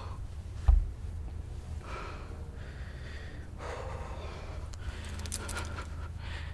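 Slow, audible breaths over a steady low hum, with a single dull low thump just under a second in and a faint brief crackle about five seconds in.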